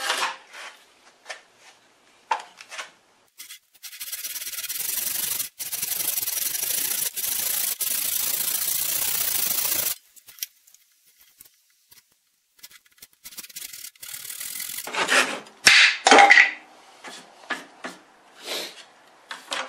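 Handsaw cutting through a board at a knife-scored line: about six seconds of steady rasping strokes. A few sharp knocks and clatters of wood and tools on the bench follow near the end.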